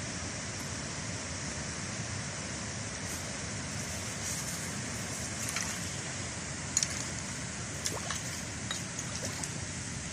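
Water trickling steadily along a narrow irrigation channel. A hoe scrapes and knocks against the soil and stones of the channel bed, a few short sharp strikes, the loudest about seven and eight seconds in.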